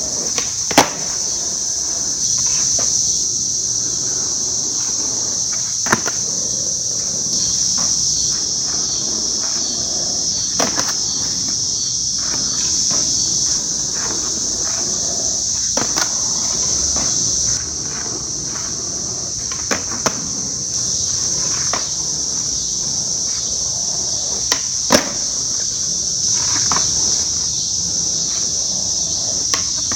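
A steady high-pitched chorus of insects, broken every few seconds by the sharp cracks of a skateboard's tail popping and its wheels landing on asphalt; the loudest cracks come about a second in and near the end.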